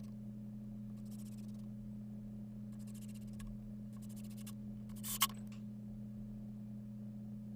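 Steady low electrical hum, with four short rasping handling sounds spaced about a second apart and a sharp click about five seconds in.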